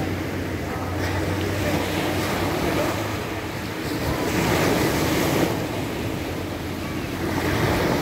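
Small waves breaking on a pebble beach, the surf washing up the shore and draining back in surges, loudest about four to five seconds in and again near the end.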